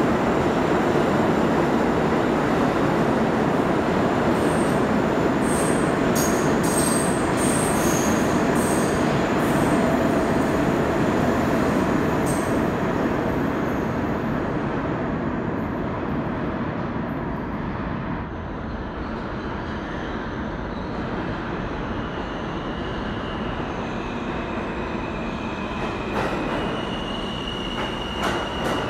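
A New York City subway train runs through the station without stopping, a loud rolling roar with some high wheel squeal that fades away over the first half. Near the end, an approaching R160 train's wheels squeal on the local track, with a couple of sharp clanks.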